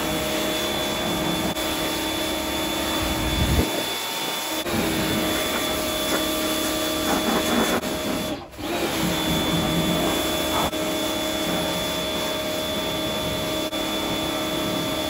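Bosch Aquatak 125 electric pressure washer running, its pump and motor giving a steady drone under the hiss of the high-pressure spray hitting the car body. The sound breaks off briefly about eight seconds in and then starts again.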